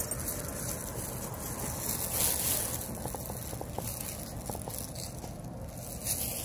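Steady hissing, rustling noise, with a few faint clicks around the middle.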